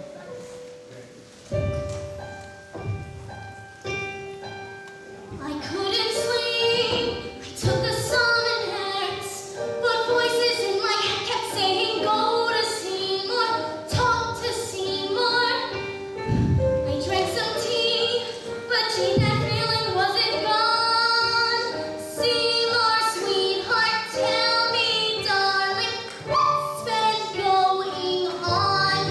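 A musical-theatre song: soft piano accompaniment alone for the first few seconds, then a young female voice sings over it from about six seconds in.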